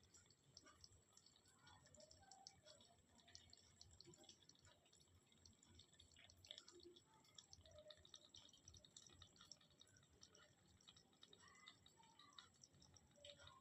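Live mud crabs making faint, irregular clicks and crackles, like scattered small drips.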